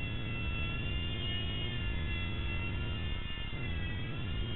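E-Flite Blade mSR micro RC helicopter's electric motors and rotors running with a high-pitched whine over a low rumble. The pitch wavers with the throttle and dips briefly around three and a half seconds in as the helicopter comes down low.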